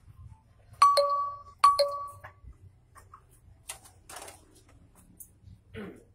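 Two clear ringing dings about a second apart, each starting sharply on one steady pitch and fading over most of a second. A few short soft clicks and rustles follow.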